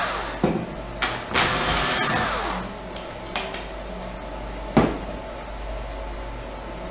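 Cordless drill with a 3 mm bit running as it bores a small pilot hole, stopping just after the start, then a second short run that winds down about two and a half seconds in. A sharp knock comes about five seconds in.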